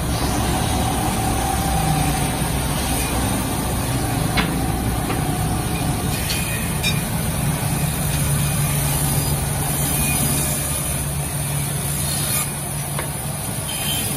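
Bandsaw running steadily, a constant motor hum under the hiss of the blade, with a few faint clicks and knocks.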